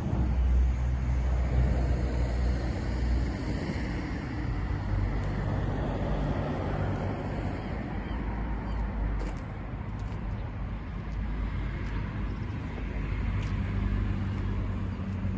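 A car engine idling, a steady low hum, with two faint clicks late on.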